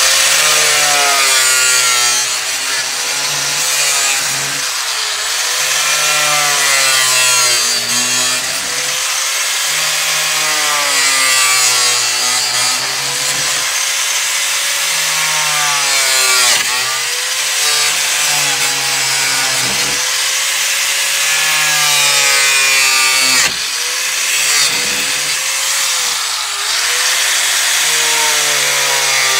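A 4.5-inch angle grinder with a cutoff wheel running continuously as it cuts the slats out of a plastic Jeep Wrangler grille. Its pitch sags and recovers again and again as the wheel bites into the material and frees up.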